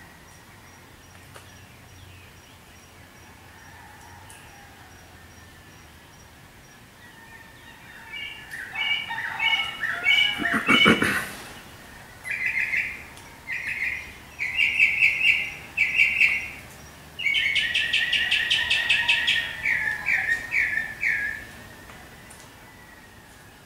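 A songbird singing close by in phrases of fast repeated chirps, ending in a few falling notes, over faint background birdsong. About 11 seconds in there is one short, loud rasping noise.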